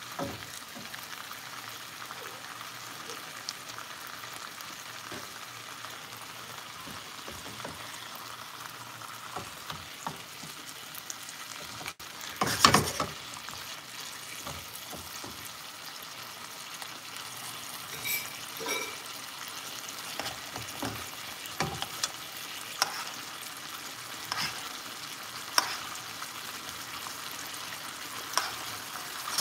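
Chicken breasts, peppers and onions sizzling in sauce in a skillet: a steady hiss broken by clinks and scrapes of a silicone spatula and a spoon stirring and basting against the pan. The loudest clatter comes a little before halfway through.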